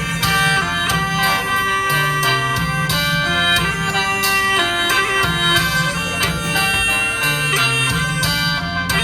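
Khaen, the Isan bamboo free-reed mouth organ, playing a lively folk tune in pulsing chords over a steady drone.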